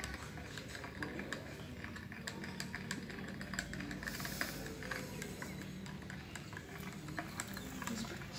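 Scattered light clicks and clinks of cutlery on plates over a steady low background hum of a café, with a brief hiss about four seconds in.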